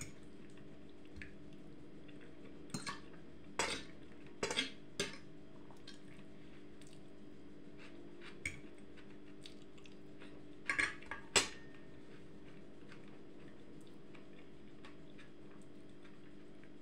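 Metal cutlery clinking and scraping against a dish while eating, in scattered short taps. There are a couple around three seconds in, a few more between about three and a half and five seconds, one near eight and a half seconds, and a cluster near eleven seconds. A steady low hum runs underneath.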